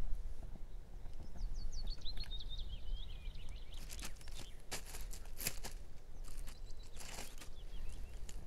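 A songbird sings a descending trilling phrase about a second in, with a shorter, fainter phrase near the end. In between come a few bursts of crunching as crisp food is bitten and chewed, over a low rumble of wind.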